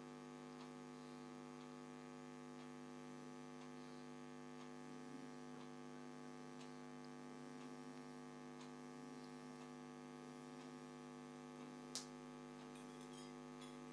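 Faint steady electrical hum, near silence otherwise, with one short click about twelve seconds in.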